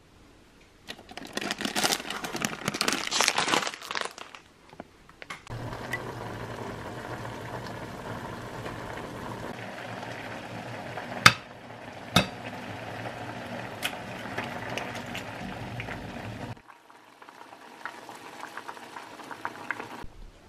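Instant noodle packet crinkling, then a steel pot of water boiling steadily on the hob, with two sharp taps about a second apart in the middle: an egg being cracked on the pot's rim.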